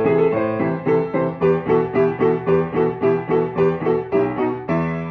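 Piano played with both hands: a steady stream of notes, about four a second, over held lower notes, moving to a new chord near the end.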